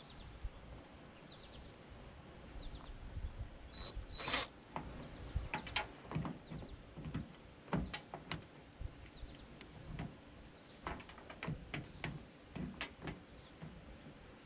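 Irregular clicks and knocks of a tool working on the handle fittings inside a car door, trying to free a piece that is rusted in. Faint bird chirps now and then in the background.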